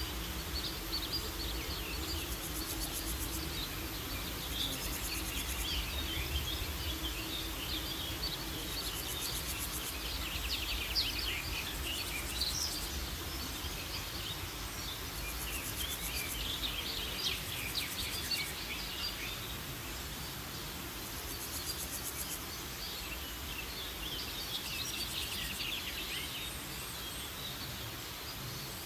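Woodland ambience: birds singing in repeated bouts of quick chirps and trills, over a faint high pulsing insect chirr that comes and goes and a low steady background rumble.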